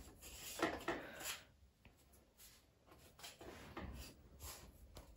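Faint rubbing and light knocks of hands handling a small video light on a tripod, in a few brief bursts with a quiet gap in the middle.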